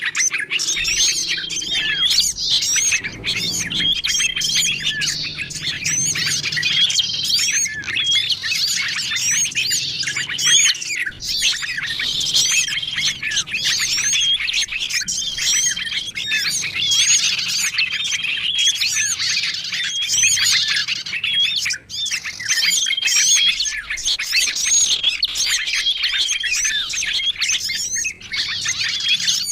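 Bird-lure recording of many small songbirds calling at once: a dense, unbroken mix of chirps and quick twittering notes, with a short flat whistled note recurring every few seconds.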